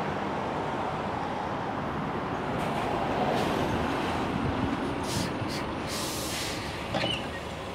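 Double-decker bus pulling in to a stop, its engine running, with several short hisses of air from its air brakes and doors about five seconds in and a click near the end.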